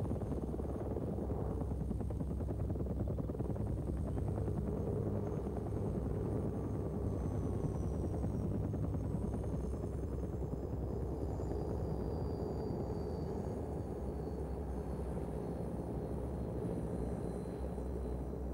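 Light turbine helicopter running on the ground with its rotor turning: a steady dense rotor and engine noise, with a faint high turbine whine that slowly drops in pitch through the second half.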